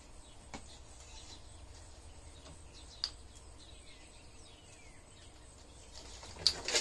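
Faint outdoor ambience with birds chirping now and then and a couple of light clicks, then a few louder knocks near the end as the swing prop's rope is handled.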